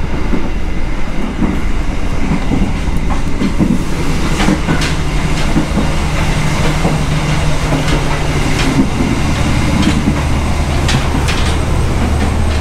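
Passenger train running along the track, heard from inside a carriage: a steady low rumble of wheels and running gear, with occasional sharp clicks from the wheels on the rails.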